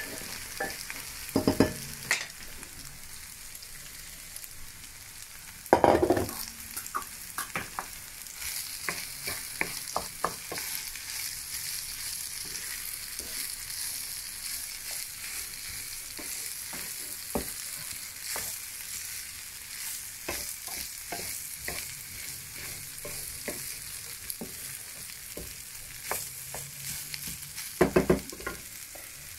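Rice frying in a pan with a steady sizzle while it is stirred with a wooden spoon, the spoon scraping and tapping against the pan. Louder knocks of the spoon on the pan come about a second in, about six seconds in and near the end.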